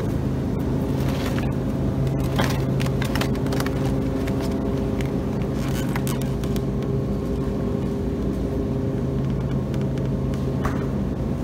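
Steady machine hum of a refrigerated supermarket meat case, with the crackle of plastic-wrapped meat trays being handled now and then.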